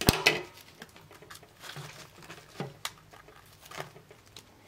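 Hands handling cardboard CD packaging. It opens with a sharp knock, then scattered light taps and soft paper rustling as a sleeve is slid out of the box.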